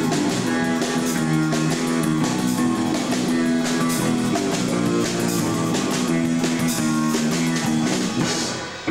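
Live rock band playing: electric guitar chords over a drum kit. The level dips just before the end.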